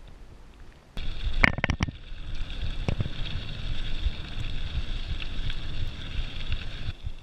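Mountain bike rolling fast down a dirt trail: tyre rumble over the dirt and rattling of the bike, with wind on the camera microphone. It starts abruptly about a second in after a quieter stretch, with a few sharp knocks just after it starts.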